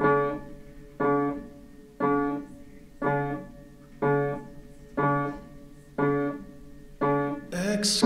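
Background music: a keyboard chord struck about once a second, eight times, each fading before the next. A fuller arrangement with singing starts near the end.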